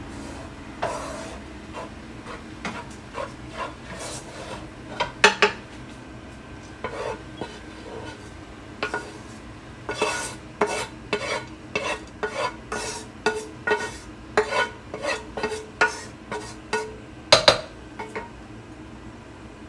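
Spoon stirring, scraping and tapping against a dish and pot as leftover rice and filling are mixed and spooned onto the rice: irregular clinks, sparse at first and coming about once or twice a second in the second half.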